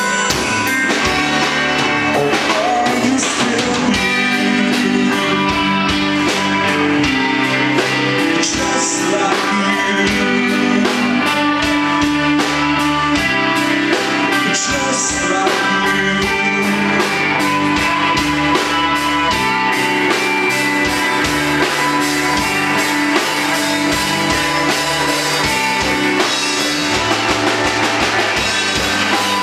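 Live rock band playing a song, with electric guitars, bass guitar and a drum kit keeping a steady beat.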